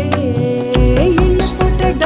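Background music: an Indian-style melody with a sung or bowed line sliding over a steady drone and a deep beat.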